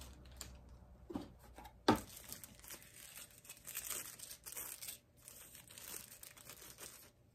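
Sunglasses' wrapping rustled and unwrapped by hand in short spells, with one sharp click about two seconds in.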